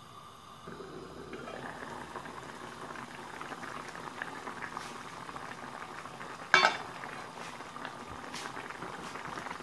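Pan of small-fish (puti) curry boiling hard, the thick gravy bubbling, louder after the first second or so. A single sharp knock about six and a half seconds in stands out above the bubbling.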